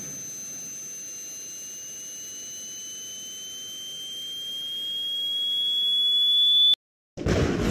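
High-pitched ringing tone used as a sound effect, over a soft hiss. It slowly rises in pitch and swells in loudness, while a second, higher tone fades out about two-thirds of the way through. It cuts off abruptly near the end, leaving a moment of silence.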